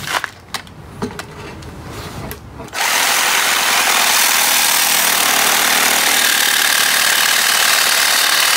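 A few short clicks and knocks as the reciprocating saw's blade is set against a metal frame tube. About three seconds in, the saw starts and runs steadily, loud and unbroken, its blade cutting through the tube.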